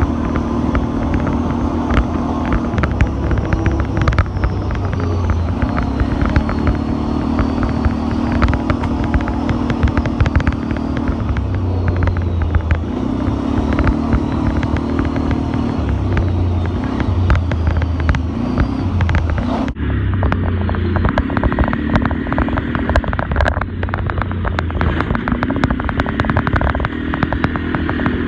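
ATV engine running under way on a rough dirt trail, its note rising and falling as the throttle is opened and eased every few seconds, with frequent knocks and rattles from the bumpy ground.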